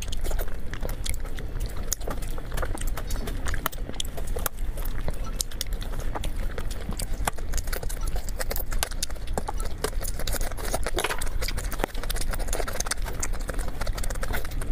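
Close-miked eating: chewing and mouth sounds heard as many small irregular clicks, over a steady low hum.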